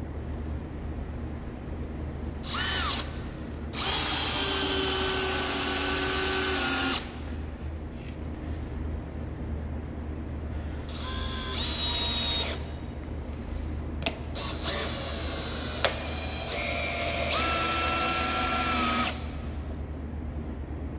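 Cordless drill driving 3- to 4-inch screws into stacked 2x10 wood boards, in several separate runs: a short burst about two and a half seconds in, a three-second run, two short runs near the middle, and a last long run near the end. A couple of sharp clicks fall between the later runs.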